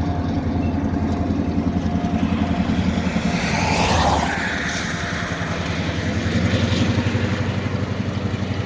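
Car driving at road speed, heard from inside the cabin: a steady engine and tyre rumble. About halfway through, a rushing noise swells up and fades away.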